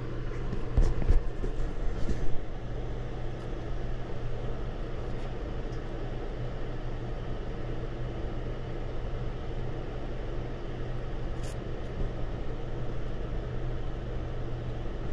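Steady hum of running HVAC equipment, with a few knocks and clicks from wires being handled in the first two seconds or so.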